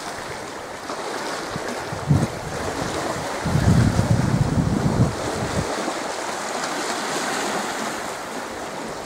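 Small sea waves washing steadily against a rocky shore, with wind buffeting the microphone as a low rumble for about two seconds near the middle.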